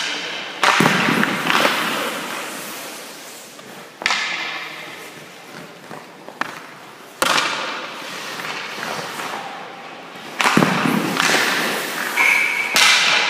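Hockey pucks being shot with a stick and striking goalie pads and the boards: about eight sharp cracks and thuds, each ringing out in the echo of an indoor ice rink.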